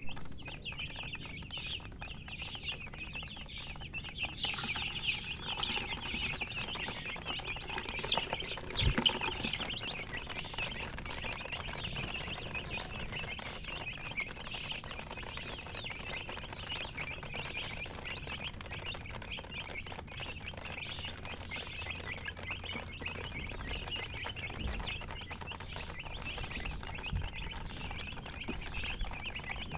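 A group of baby chicks peeping without pause, a dense chorus of short high chirps. A few low thumps come and go, the loudest about nine seconds in.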